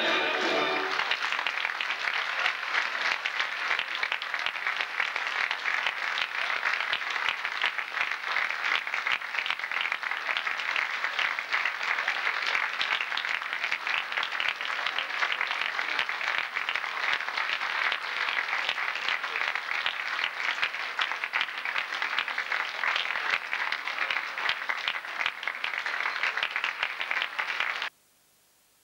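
The last notes of the music die away in the first second, then an audience applauds steadily. The applause cuts off suddenly near the end.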